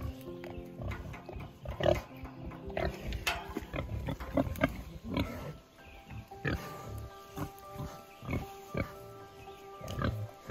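A Berkshire sow drinking and eating from pans: a run of irregular slurps, chomps and snuffling grunts. Soft background music plays steadily underneath.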